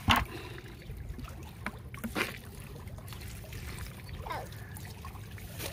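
Live crappies flapping and splashing in a bucket of water. A sharp splash comes right at the start, then a few smaller ones around two seconds in, over a steady low rumble.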